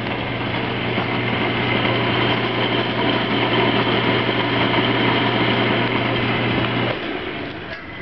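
Craftsman 5-speed bench wood lathe running, its electric induction motor giving a steady hum over the whir of the spinning spindle. About seven seconds in the motor is switched off and the sound winds down.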